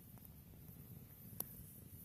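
Near silence, with one sharp click about one and a half seconds in and a fainter one near the start.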